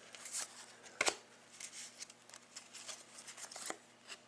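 A pack of hockey trading cards being opened and handled: light rustling of wrapper and cards sliding against each other, with a sharp click about a second in.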